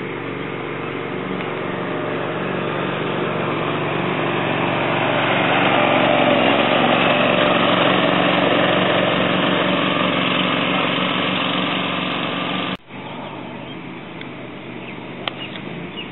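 Riding greens mower's small engine running steadily as it drives past, growing louder to its closest point midway and then easing off, until the sound cuts off suddenly about three-quarters of the way through. After that, quieter outdoor ambience and a sharp click of a golf club striking a ball from the tee near the end.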